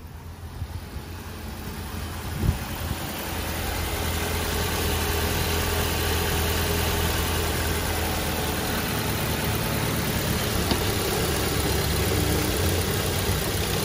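A 2011 Ford Transit Connect's 2.0-litre four-cylinder engine idling steadily with the hood open, growing louder over the first few seconds and then holding even. A single sharp knock comes about two and a half seconds in.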